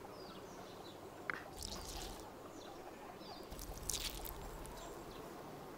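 Half a lemon squeezed by hand, with faint, soft squelches and its juice dripping and trickling into a blender jar of mayonnaise.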